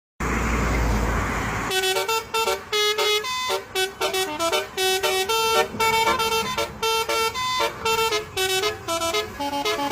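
Telolet basuri multi-tone horn playing a fast melody, one short horn note after another at changing pitches, after a rush of noise in the first second and a half.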